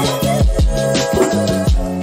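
Background music with a steady beat and deep, booming bass drum hits.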